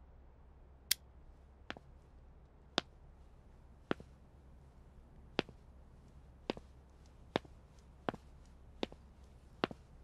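Footsteps of hard-soled shoes on a wooden floor: sharp single taps about one a second, slightly uneven, over a faint low hum.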